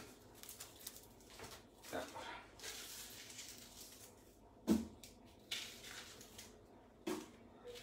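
Faint kitchen handling sounds: a few scattered knocks and rustles, the loudest a single dull knock just past the middle.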